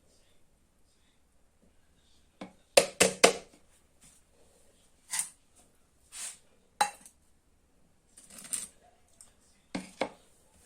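Kitchen utensils knocking against a cooking pot: a quick run of four knocks about three seconds in, then scattered clinks and scrapes.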